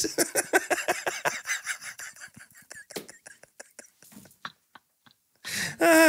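A man laughing hard: quick breathy pulses, several a second, that fade away over about four seconds, a brief pause, then a louder burst of laughter near the end.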